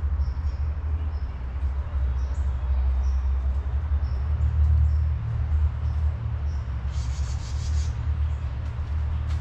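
Small birds giving short, high chirps over and over, with a harsher buzzy call about seven seconds in, over a steady low rumble.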